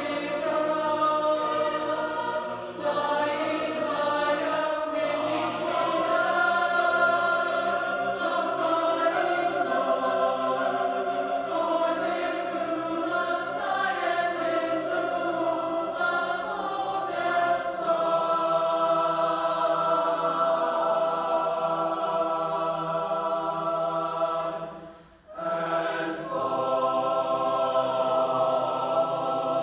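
Mixed choir of young men and women singing sustained chords together, with a short break in the sound about 25 seconds in before the voices come back in.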